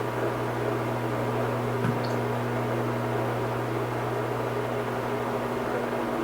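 A steady low hum over an even hiss, with a faint tick about two seconds in.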